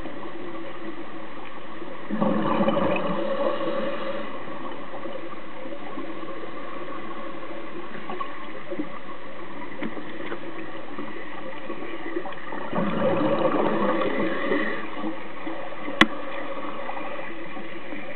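Steady underwater hiss broken twice by a burst of scuba exhalation bubbles, about two seconds in and again around thirteen seconds. A single sharp click comes near the end.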